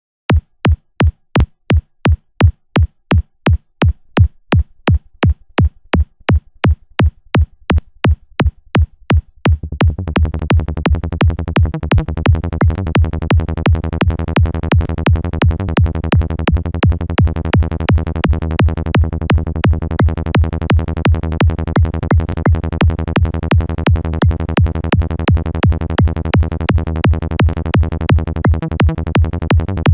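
Electronic kick drum looping at 170 BPM, about three strokes a second, playing alone at first. A low-passed Sylenth1 synth bass joins faintly about four seconds in and turns loud and continuous under the kick about ten seconds in, its cutoff driven by a filter envelope.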